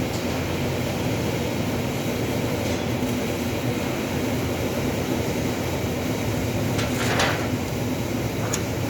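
Steady machinery hum with a constant hiss, and a brief knock about seven seconds in.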